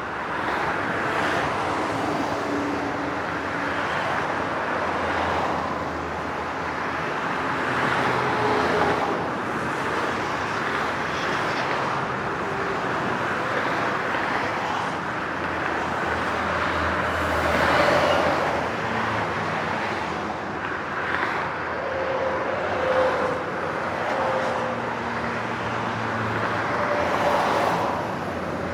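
Highway traffic: a continuous rush of tyre and engine noise from many vehicles, with single vehicles passing louder now and then, most plainly about 18 seconds in.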